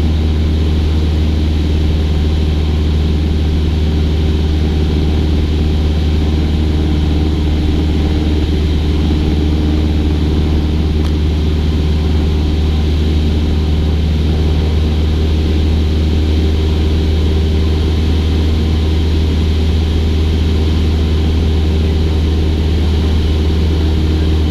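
Cessna 172's piston engine and propeller running at steady cruise power, a constant low drone heard from inside the cockpit.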